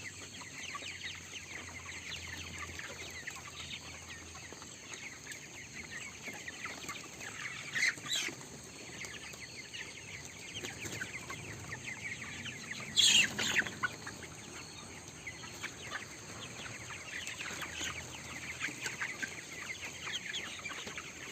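A flock of 22-day-old broiler chickens calling continuously, with two louder calls about eight and thirteen seconds in. Among them is a rattling 'krok krok' breathing sound, which the owner takes for mucus in a bird's throat (ngorok, respiratory rattling).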